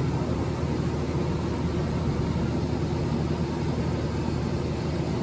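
Electric arc welding of steel boxing plates into a race-car chassis frame: a steady, continuous crackling buzz from the welding arc.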